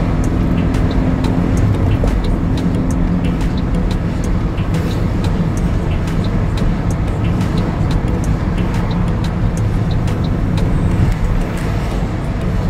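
Steady low rumble of a car's engine and tyres heard from inside the moving car, with many small sharp ticks or rattles scattered through it.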